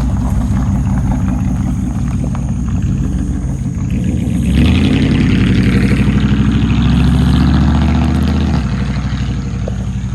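Vehicle engine running, then revving up about four and a half seconds in, its pitch climbing as it speeds up, before easing off about eight and a half seconds in.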